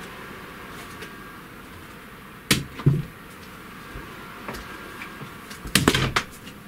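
A few sharp knocks and clicks of handling, twice around two and a half to three seconds in and a quick cluster near the end, over steady faint room noise.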